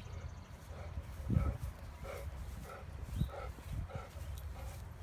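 A large dog panting in short, even puffs, about two a second. There are a couple of dull low thumps, the louder one about one and a half seconds in.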